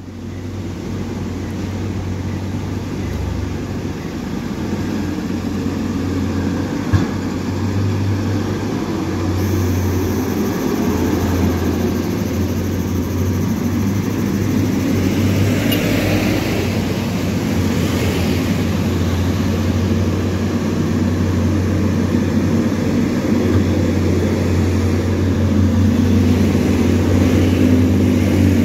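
Heavy diesel trucks and other traffic on a steep mountain hairpin road, engines running with a steady low drone; a motorcycle and a van pass among the trucks.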